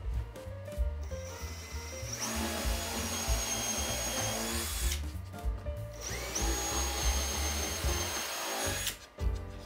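Cordless Milwaukee drill boring starter holes through plywood in two runs of a few seconds each, the motor's high whine climbing as it spins up and cutting off when each hole is through. Background music plays underneath.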